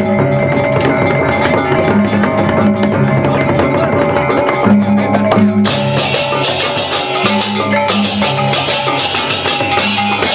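Balinese gamelan music: pitched metal percussion and a repeating low drum and gong pattern, with clashing cymbals coming in about halfway through.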